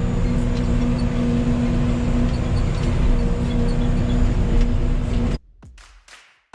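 Yanmar ViO80 excavator's diesel engine and hydraulics running steadily with a constant whine. It cuts off abruptly about five seconds in.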